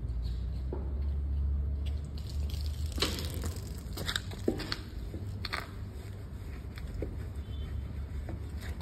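Wet wheel cleaning on a foam-covered alloy wheel: soapy crackling and squelches, with a few sharp clicks and taps from footsteps and a wheel brush about three to six seconds in. A steady low rumble runs under the first couple of seconds.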